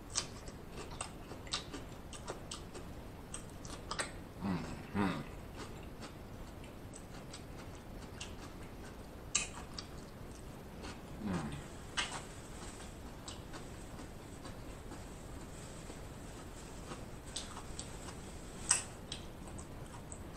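Close-miked eating sounds: a man chewing with wet mouth clicks, smacks and crunches scattered through. He makes short low hummed sounds around four to five seconds in and again about eleven seconds in.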